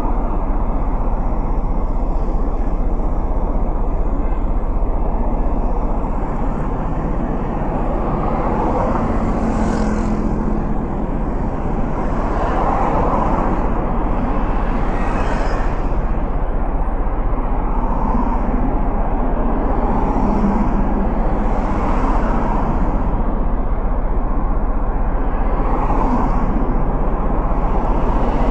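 City road traffic heard from a stopped motorcycle at an intersection: cars pass one after another, each a swell of engine and tyre noise that rises and fades, over a steady low rumble.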